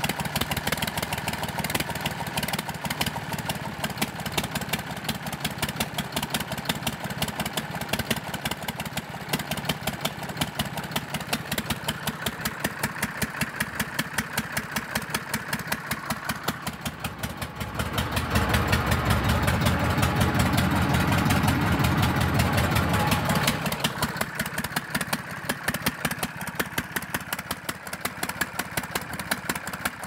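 Zetor diesel tractor engine idling with an even, rhythmic clatter. For about five seconds past the middle it runs louder and fuller, as if throttled up, then settles back to idle.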